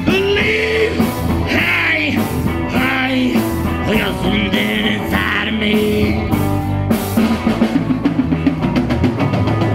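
Rock band playing live on drum kit, electric guitar and electric bass, with quick, even beats in the last few seconds.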